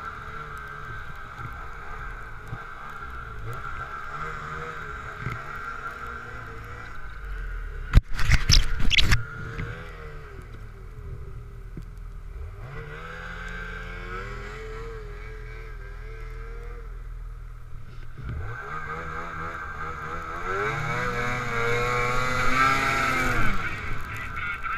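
Ski-Doo snowmobile engines running at idle, then revving in rising pitch glides twice and getting louder as the sleds pull away, with a loud burst of noise lasting about a second around eight seconds in.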